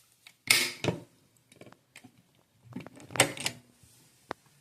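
A few short knocks and clicks of handling, the loudest about half a second in and around three seconds in, with a single sharp click near the end.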